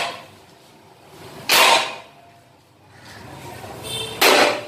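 A long steel rod rammed down into the soil to loosen the ground for a borewell: two heavy strikes, one about a second and a half in and another near the end, with a short high metallic ring just before the second.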